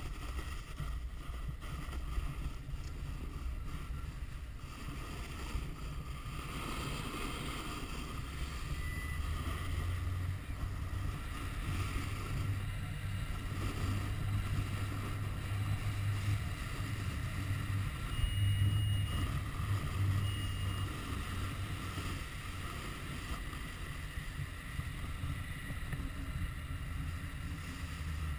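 Wind rushing over an action camera's microphone as a snowboarder rides downhill, a steady low rumble that grows stronger around the middle, with the snowboard sliding over packed snow.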